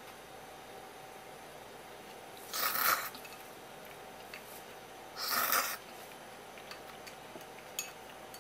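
A person slurping twice, each slurp about half a second long and a few seconds apart, while eating raw spear squid cut into thin noodles (ika sōmen) dressed with soy sauce.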